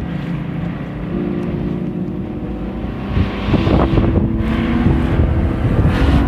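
A small boat's engine running under way, with wind buffeting the microphone and water noise; the engine note rises about three and a half seconds in.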